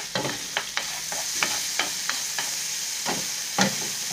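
Red chilli powder and bhaji sizzling in foaming fat on a hot flat iron pan, with a steady hiss. A spatula stirs and spreads them, its strokes scraping and tapping on the pan about a dozen times; the loudest comes about three and a half seconds in.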